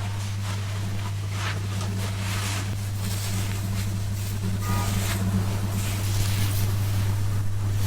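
Hair being washed: soft, intermittent hissing and rustling of water and hands in wet hair over a steady low hum.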